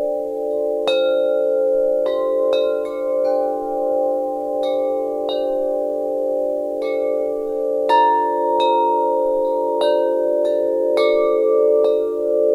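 Wind chimes ringing, struck at irregular intervals, roughly a dozen times. Each strike rings on and overlaps the others over a steady hum of long-held lower notes.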